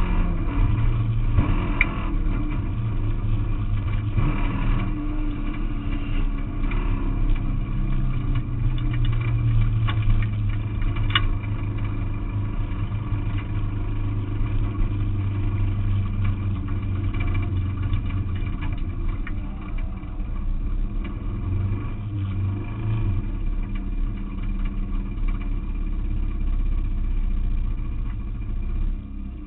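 Renault Clio autocross car's engine heard from inside the cabin while racing on a dirt track, running hard with the revs rising and falling as the driver works through the course.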